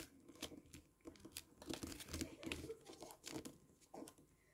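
Faint, intermittent rustling and crinkling of square colour origami paper being folded up and creased by fingertips, in short scattered scrapes and taps.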